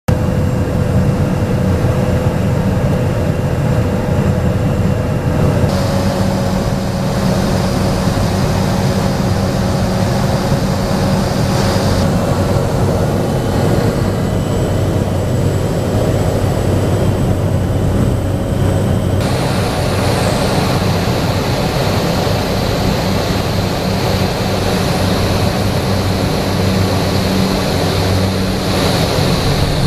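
A single-engine light aircraft's piston engine and propeller drone steadily, heard from inside the cabin during the approach to land. The engine note shifts a few times along the way.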